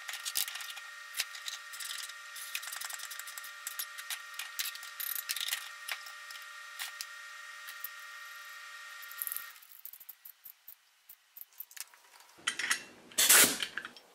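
Small metal clicks, taps and scrapes as brass air fittings are handled and screwed together at a bench vise, over a steady high hum that stops about two-thirds of the way through. Near the end comes a louder rushing, rustling noise lasting about a second.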